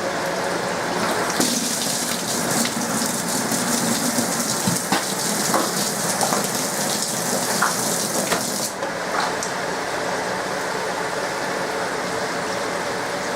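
SMEG 11 kg washing machine running a rinse, water rushing and splashing in the drum, with a louder hiss of water and scattered clicks from about a second and a half in until shortly before the end.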